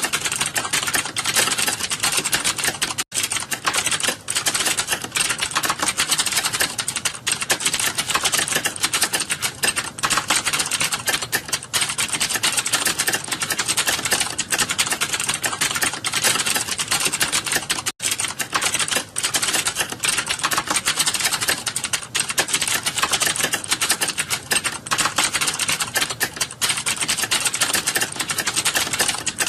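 Fast, continuous typing on a computer keyboard: a rapid, unbroken stream of keystrokes during a timed typing-speed test, with two brief pauses.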